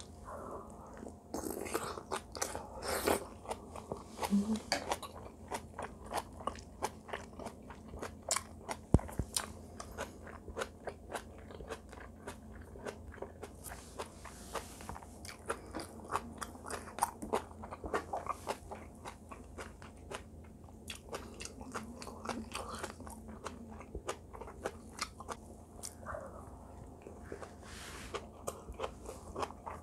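A person chewing braised kimchi and rice close to the microphone: a steady run of small wet crunches and mouth clicks, with one sharper click about nine seconds in.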